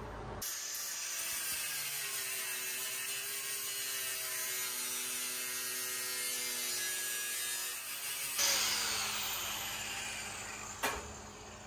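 Electric angle grinder running without cutting: a steady motor whine with hiss. The hiss grows brighter and briefly louder about eight seconds in, and a sharp click comes near the end.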